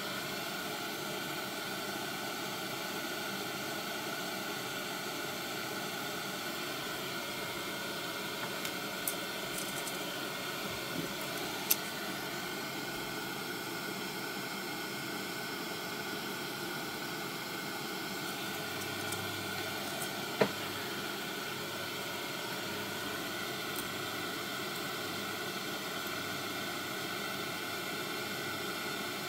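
A steady hiss, with a few light clicks and taps as small parts are handled on the bench.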